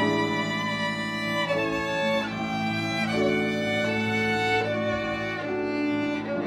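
Solo violin playing a slow, legato melody of long held notes joined by smooth slides, with piano accompaniment underneath.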